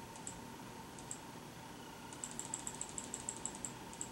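Faint clicking of computer keys: a couple of single clicks, then a quick run of about a dozen taps over a second and a half from about halfway in, and one more near the end.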